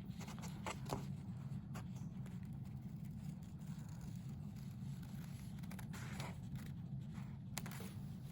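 Scissors cutting through folded paper along a curved line: a few faint, scattered snips over a steady low hum.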